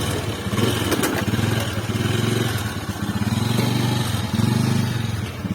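Motorcycle engine idling with a steady, even beat.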